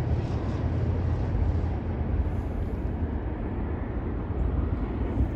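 Freight train rolling past with a steady, deep rumble and no horn.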